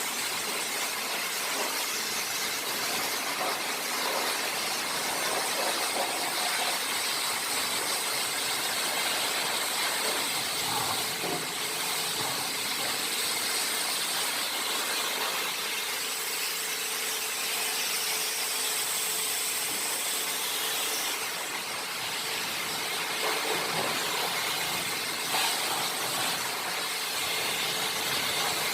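High-pressure washer running steadily, its spray hissing with a constant high whine over it.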